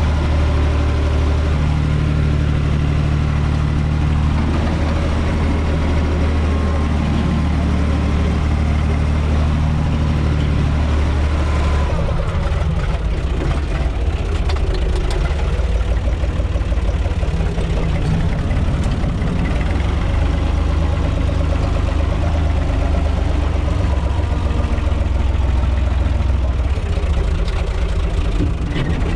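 UTB 445 tractor's diesel engine running steadily, heard from inside its cab. Its note changes abruptly about twelve seconds in.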